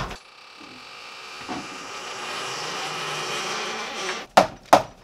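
A passing vehicle's engine noise swells for about three seconds and then fades. Near the end, two sharp taps of a plastic hammer on a wheel bearing being seated in a solid-core wheel hub.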